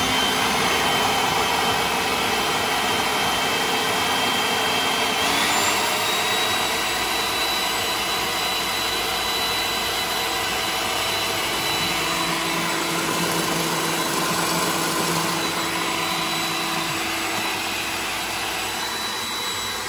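Food processor motor running steadily while it blends chickpeas, tahini, garlic and olive oil into hummus. Its whine steps up in pitch about five seconds in.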